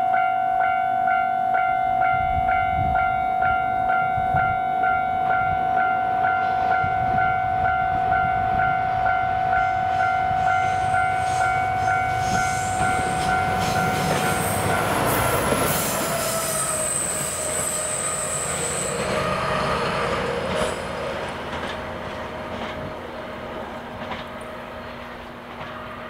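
DE10 diesel-hydraulic locomotive sounding its horn in one long unbroken blast of about fifteen seconds, which drops in pitch as the engine passes. Its diesel engine is working at full power up a steep grade. A high squeal from the wheels on the curve comes just after it passes, then the engine sound fades as it climbs away.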